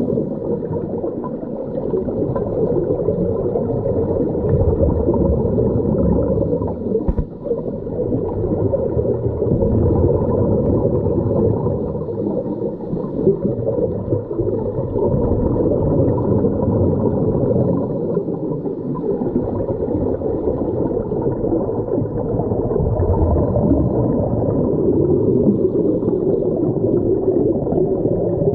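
Muffled underwater sound heard through a submerged camera: the rumbling, gurgling rush of a scuba diver's exhaled bubbles from the regulator, swelling and easing every few seconds.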